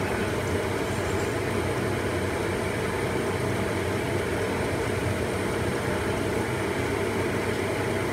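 Steady low rumbling background noise in a kitchen during stir-frying, even throughout, with no distinct spatula scrapes or sizzle standing out.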